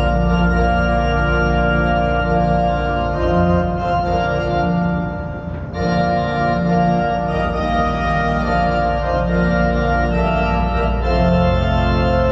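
Organ playing slow, sustained chords over a deep held bass note, changing chord a few times with a brief dip about five and a half seconds in.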